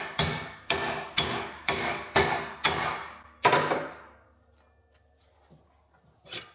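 Hammer blows on a metal plate clamped in a bench vise, bending it over, about two strikes a second with a metallic ring after each. The hammering stops about three and a half seconds in, and a single metallic knock follows near the end.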